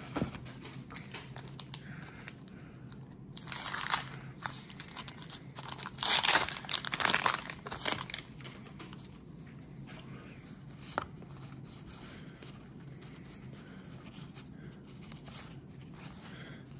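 Paper wrappers of 1991 Donruss baseball card packs being torn open and crinkled: a burst of rustling about three and a half seconds in and a louder stretch of tearing and crinkling from about six to eight seconds, with light handling sounds between.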